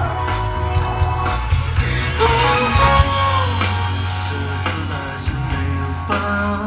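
Live rock band playing through a large outdoor stage PA: singing over electric guitar and heavy bass.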